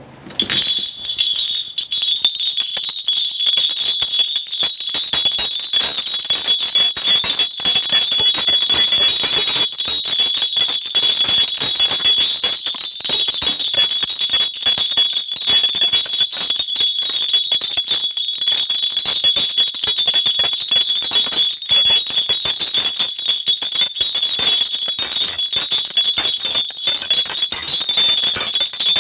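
A cluster of Korean shaman's bells (mugu bangul) shaken without pause in a dense, bright, steady jingle. This is the bell-shaking of a shaman's divination.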